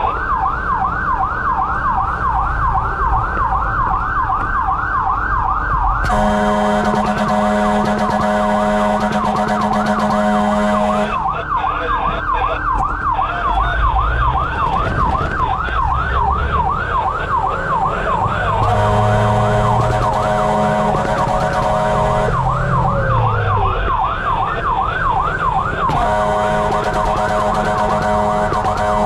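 Fire truck siren on a fast yelp, sweeping up and down about three times a second without a break, while the truck responds to a fire alarm. Three long, steady horn blasts sound over it, the first about six seconds in, another past the middle and the last near the end.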